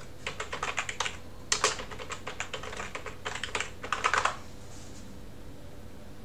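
Typing on a computer keyboard: a quick run of keystrokes, with a few louder clusters, that stops about four seconds in.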